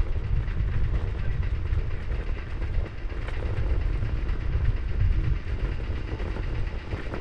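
Steady, rumbling wind and rolling noise from an electric scooter ride over rough off-road ground.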